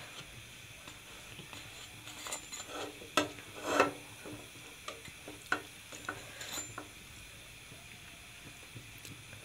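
Burger bun half warming in a little oil in an aluminium frying pan, faintly sizzling, with a run of light metallic clicks, knocks and scrapes against the pan between about two and seven seconds in.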